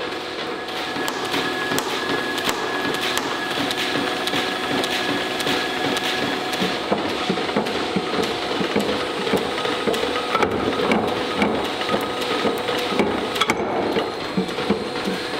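Beaudry No. 11 Champion mechanical power hammer running: a steady whine from the drive under the ram's clattering up-and-down strokes, with sharp knocks growing more frequent in the second half.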